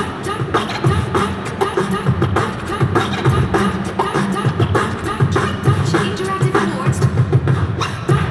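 Live human beatboxing through a handheld microphone and PA: a fast, steady rhythm of drum-like kick, snare and hi-hat strokes over a deep bass.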